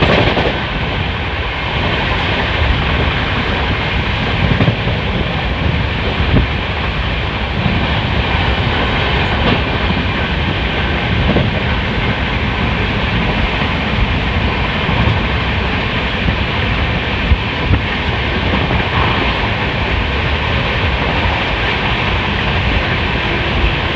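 Passenger train running at speed, heard from inside the coach at the window: a steady, loud rumble of wheels on rails with a few sharp clicks scattered through it.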